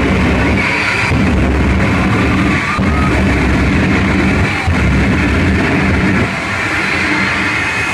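Loud rock music with guitar and drums, steady throughout.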